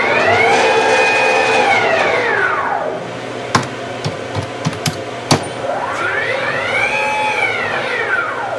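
CAMaster Stinger CNC router's stepper motors driving the gantry to the centre of the table in two rapid moves. Each move is a whine that rises in pitch as the axis speeds up, holds, then falls as it slows to a stop. The first move ends about 3 seconds in and the second starts about 5.5 seconds in, with a few light clicks between them.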